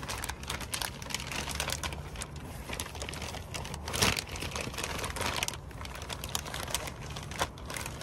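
Thin plastic shopping bag rustling and crinkling as hands rummage inside it, in quick irregular crackles with one louder crackle about four seconds in.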